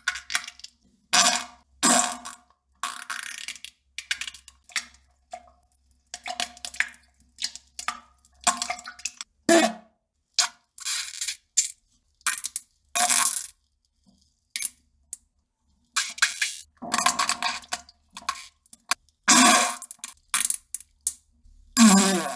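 A long string of short fart and poop sound effects, each burst lasting a fraction of a second with brief silences in between, and a few longer bursts in the last several seconds.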